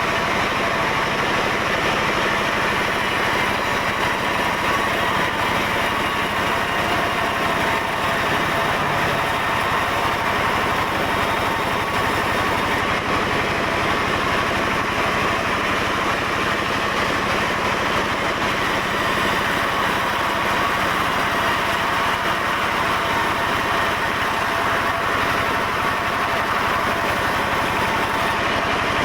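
Sawmill machinery running steadily: a dense, even mechanical noise that holds the same level throughout, with no starts or stops.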